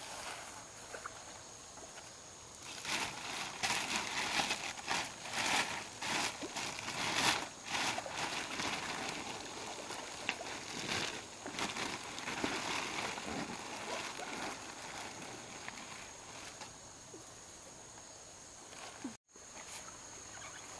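Clear plastic bag and plastic sheeting rustling and crinkling in irregular bursts as large fish are handled on it. This goes on for about a dozen seconds, then settles about 16 s in, over a steady high-pitched hum.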